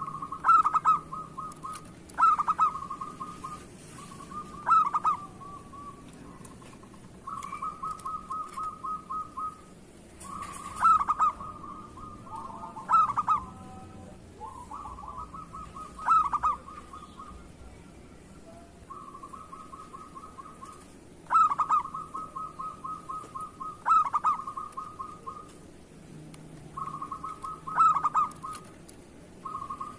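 Zebra doves (perkutut) cooing: runs of quick rattling notes broken by loud accented coos every two to three seconds. A second bird's calls overlap midway.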